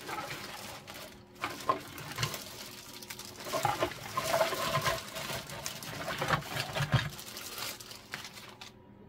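Plastic bags rustling and crinkling as 3D-printed statue parts are shaken out of them, with light knocks of the parts landing on a countertop. The rustling stops near the end.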